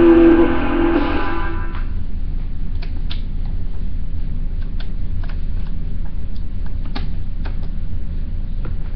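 A vinyl record's last musical note ringing out and stopping about two seconds in, leaving the stylus in the groove: a steady low rumble with scattered clicks and pops of surface noise.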